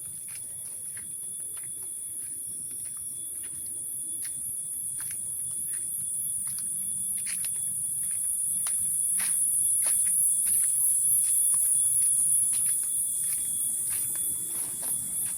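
High-pitched chorus of insects, a shrill pulsing drone that swells louder through the middle and beats more strongly near the end, with a thinner steady whine beneath it. Irregular footsteps on the trail tick and crunch throughout.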